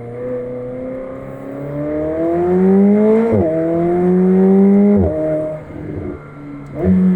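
McLaren 765LT's twin-turbo V8 pulling hard, its pitch rising through one gear and snapping down into the next upshift, then rising again. It drops as the driver lifts off, and a quick rev blip comes near the end.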